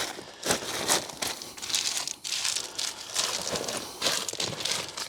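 Gravel and bag fabric crunching and rustling in irregular bursts as stone is worked into a silt-trap bag.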